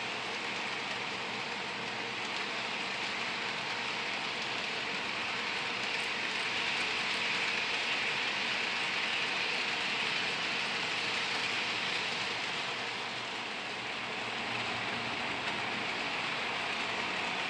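HO scale Athearn Blue Box GP40 model locomotive and its freight cars running on the track: a steady whirring, rattling hiss that grows louder for a few seconds as the train passes close, then eases.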